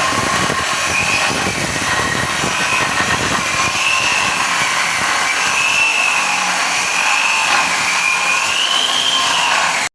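Electric power tool running continuously with a high whine that wavers up and down in pitch as it bites into the wall, cutting a chase for buried conduit. It cuts off suddenly near the end.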